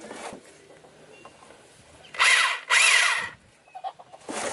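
Corded power tool run in two short bursts, its motor whine rising and falling each time the trigger is pulled.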